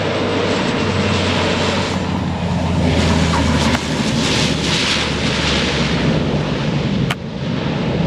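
Twin-turboprop airplane engines running at high power, a loud steady drone with a low hum underneath. A short click and a brief drop in level come about seven seconds in.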